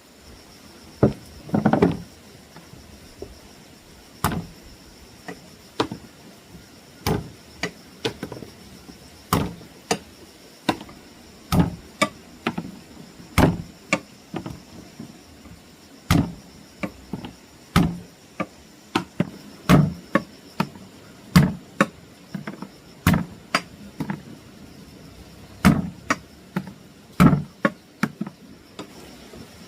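Repeated sharp knocks, about one a second at an uneven pace, some coming in quick pairs, over a faint steady high-pitched hum.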